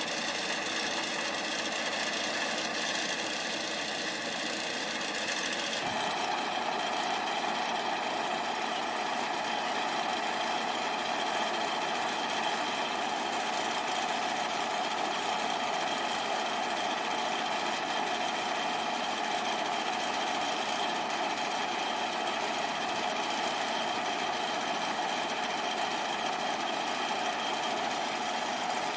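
Engine of heavy earthmoving machinery running steadily, with an abrupt shift in its sound about six seconds in.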